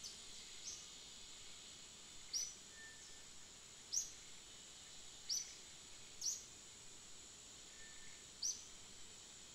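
Short, sharp high chirps from a bird, about seven at irregular intervals, over a steady high-pitched insect drone.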